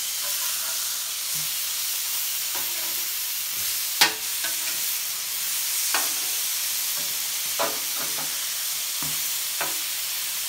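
Top sirloin steaks sizzling steadily on a Blackstone flat-top griddle while a metal spatula clacks and scrapes on the griddle as the steaks are flipped. The sharpest clack comes about four seconds in, with a few lighter ones after it.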